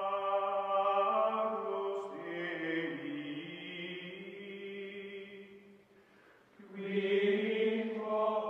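Outro music: a choir-like chant of long held notes. It drops away about six seconds in and swells back a moment later.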